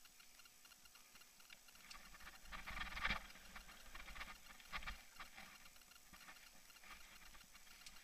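Action camera rattling in its mount as a mountain bike rides over dirt singletrack: a steady light ticking, with a cluster of louder rattling knocks about three seconds in and another near five seconds as the bike jolts over the trail.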